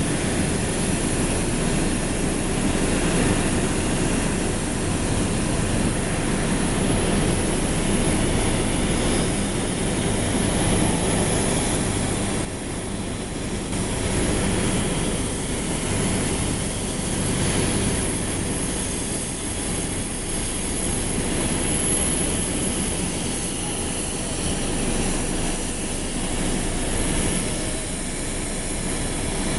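Steady jet-aircraft noise around a Boeing 737-800 during pushback: a continuous rumble and hiss with no sudden events.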